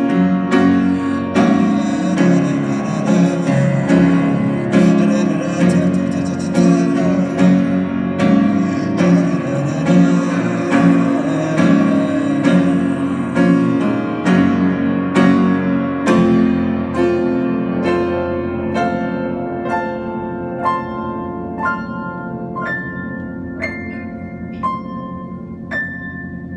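Solo piano playing: full chords with a busy low register at first, then about two-thirds of the way through thinning to single high notes struck about once a second. The playing grows gradually quieter.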